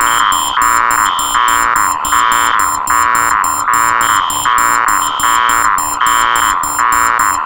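Four electronic alarms layered into one loud, looping din: a fast beep about twice a second and a higher beep about once a second over a steady tone, with rapid high chirps on top.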